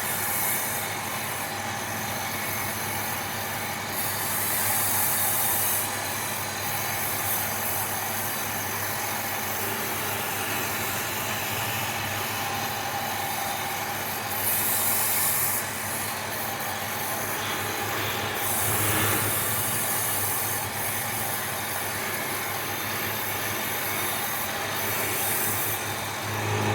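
Wood lathe running with a steady motor hum, while a turning tool cuts the spinning wood in several hissing passes of a second or two each.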